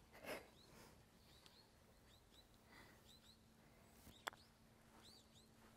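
Small birds chirping faintly, short arched chirps repeated in little runs, with a single sharp click a little over four seconds in.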